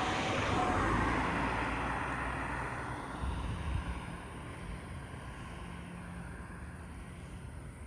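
A vehicle passing by: its noise swells to a peak about a second in, falls in pitch and fades away over the next few seconds.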